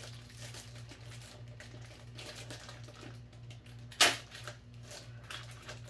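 Plastic packaging bag crinkling and crackling as it is pulled open with the hands, with a sharp rip about four seconds in as the tape sealing it comes away.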